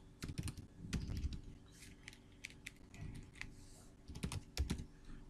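Typing on a computer keyboard: scattered keystrokes in short runs, with pauses between them.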